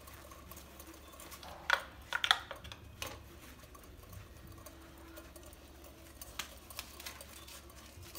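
Handling noises of a compression tester being moved and fitted into the next spark plug well: a few sharp clicks and knocks about two to three seconds in, then fainter ticks, over a steady low hum.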